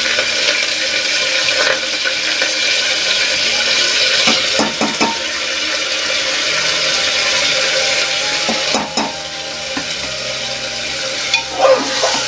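Washed rice sizzling in hot ghee in an aluminium pressure cooker, with a steel spoon scraping the pot a few times, most near the end as the rice is stirred.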